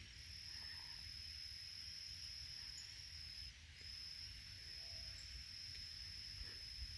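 An insect trilling steadily at a high, even pitch, with a brief pause about halfway through.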